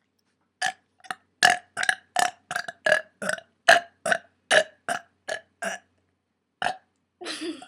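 A girl burping: a quick string of about fifteen short burps, then one more near the end.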